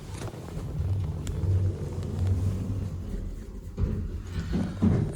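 Passenger lift car travelling down, a low steady rumble from the moving car and its drive, with a few short knocks near the end.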